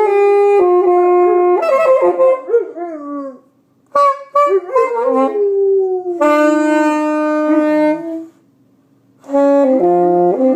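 Saxophone playing held notes while a Rottweiler howls along, her howl wavering and sliding down in pitch against the instrument. The playing stops twice for a moment, about three and a half seconds in and again about eight seconds in.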